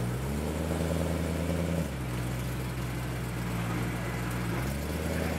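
BMW M3 GTS's 4.4-litre V8 running at low revs as the car pulls away slowly, the engine note stepping up and down a few times.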